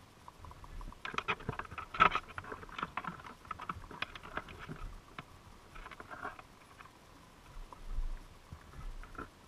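A dense run of sharp underwater clicks and crackles, heard through a GoPro's waterproof housing inside a crab trap. They start about a second in, are loudest about two seconds in and thin out after about five seconds, with a few scattered clicks near the end.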